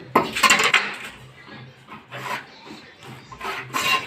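Wood being scraped or rubbed by hand in several short, irregular strokes, the loudest about half a second in and others near the middle and end.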